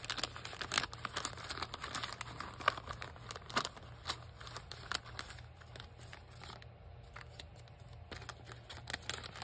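Clear plastic sticker packets and paper scraps crinkling and crackling as they are sorted through by hand. The crackles are busy at first, thin out in the middle and pick up again near the end, over a faint steady low hum.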